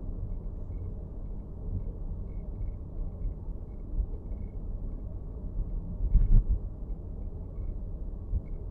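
Road rumble inside a moving Nissan X-Trail e-POWER's cabin, with a louder thump about six seconds in. Faint, irregular ticks can be heard over it, the kind of dashboard rattle the recording is meant to catch.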